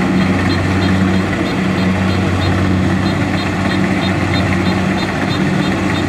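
Kubota DC-70Plus rice combine harvester's diesel engine running steadily under load while it cuts rice, a constant low hum. A faint high ticking at about three a second is heard in the first half.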